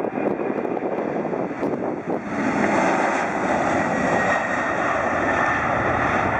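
Boeing 747-400 airliner's four turbofan engines at takeoff power during its takeoff roll: a steady jet roar that grows louder about two seconds in, with a faint high whine.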